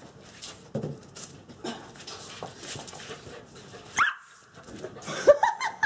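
German Shepherd puppy at play: light scuffling and clicks, then a short high yelp about four seconds in and a quick run of yips and play barks near the end, the loudest part.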